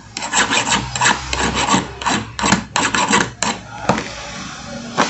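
Flat metal file rasping in quick back-and-forth strokes across the top of a brass padlock, filing a copper sealing plug flush with the lock body. The strokes stop about four seconds in.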